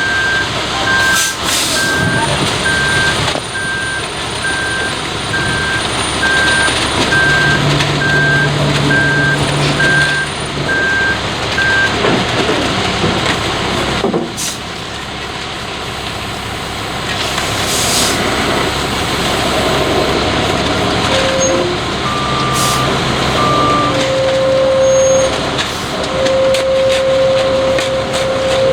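Front-discharge concrete mixer truck running its diesel engine, with its reversing alarm beeping evenly, a little over once a second, until about twelve seconds in. A few short air-brake hisses cut through.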